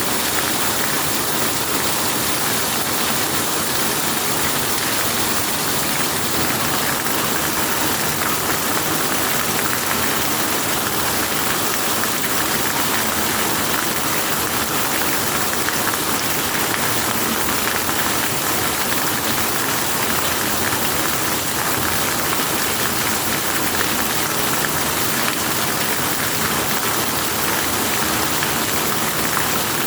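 Steady rain, a dense even hiss of falling drops that keeps up without change.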